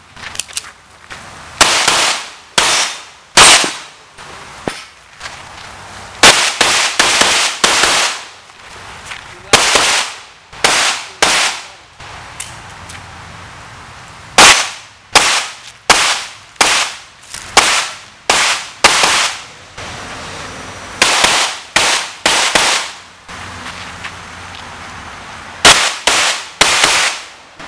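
Handgun shots fired in quick pairs and short fast strings, with pauses of one to a few seconds between groups: a competitor shooting a practical-shooting stage, engaging target after target. Each shot is sharp, with a short echo tail.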